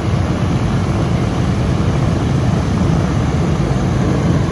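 Aircraft engine running, a loud, steady drone with no change.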